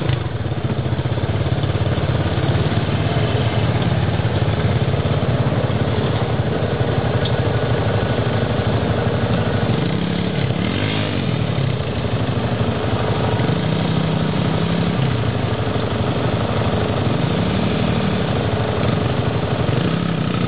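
ATC three-wheeler engine running, with engine speed swelling up and back down a few times as it is throttled on and off.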